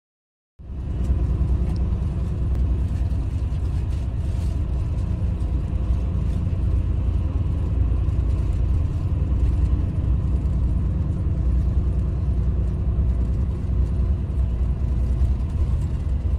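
Steady low rumble of a highway bus's engine and tyres on the road, heard from inside the passenger cabin; it starts abruptly about half a second in.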